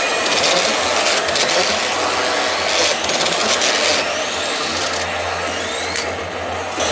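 P Hokuto no Ken 9 Toshin pachinko machine playing a loud, rushing sound effect through its speakers. Several rising sweeps come in the second half.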